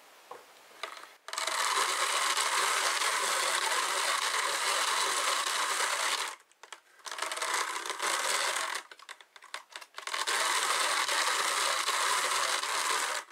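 Wooden hand-cranked drum carder being turned, its gears and wire-toothed carding drums making a steady mechanical whir as pink fibre is fed in and drawn onto the large drum. It starts about a second in and comes in three spells of cranking, with short breaks around six and nine seconds in.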